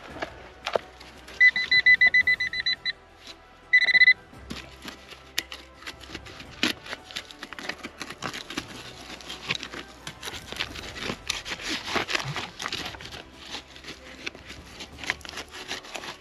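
Metal-detecting pinpointer probe beeping in a quick run of high tones, then one short beep a second later, signalling metal in the soil. After that, dry stony soil is scraped and crumbled as the hole is worked by hand.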